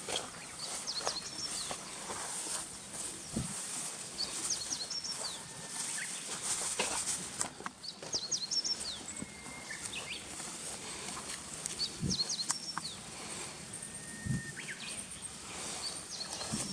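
Birdsong: short phrases of quick high chirps recur every few seconds, and twice, about 9 and 14 seconds in, a long whistled note runs straight into a quick phrase, the pattern of a Japanese bush warbler's song. A steady high hiss lies under it, with a few faint low thumps.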